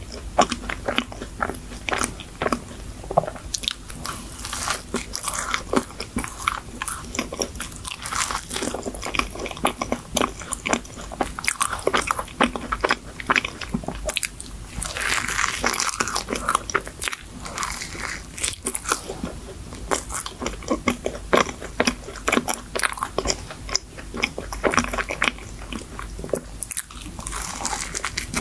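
A person chewing and biting into a chocolate cream-filled choux pastry, a dense run of short mouth clicks and smacks throughout.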